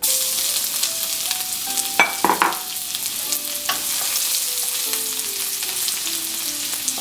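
Chopped garlic sizzling in hot oil in a nonstick wok, stirred with a wooden spatula, a steady frying hiss. A couple of sharp clicks of the spatula on the pan about two seconds in.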